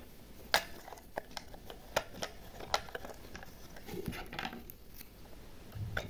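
A toy being handled: a few light clicks and taps scattered across several seconds, with quiet handling between them.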